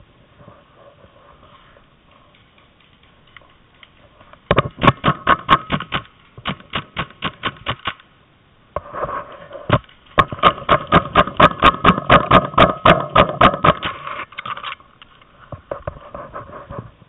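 Paintball markers firing rapid strings of shots, roughly six to eight pops a second: a burst of about three seconds starting some four and a half seconds in, then a longer, louder burst of about four seconds from about ten seconds in.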